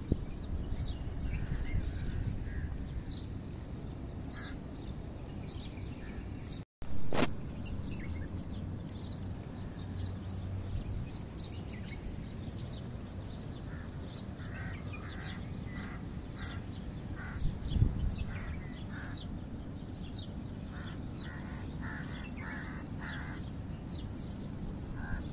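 Birds chirping and calling over a steady low background rumble, with a denser run of calls in the second half. About seven seconds in the sound drops out for an instant and comes back with a loud sudden noise, and a low thump follows about eleven seconds later.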